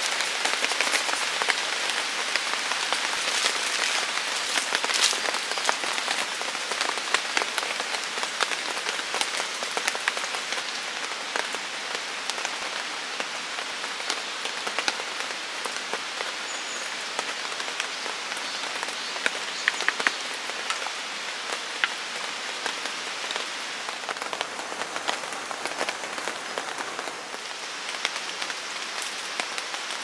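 Steady rain, with many sharp single drops hitting close by.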